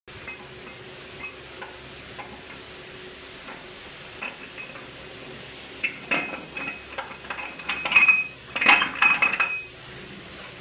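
Metal tools and engine parts clinking and clattering against each other, with short ringing tones. A low steady background runs through the first six seconds, then a burst of clinks starts about six seconds in and grows busiest about two seconds later.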